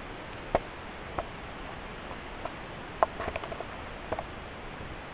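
Scattered water drips and light knocks from a kayak paddle: a few separate sharp plinks, then a quick run of them about three seconds in, over a steady hiss.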